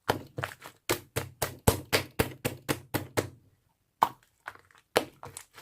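Slime being pressed and worked by hand, giving sharp popping clicks about five a second, a short pause, then a few more clicks.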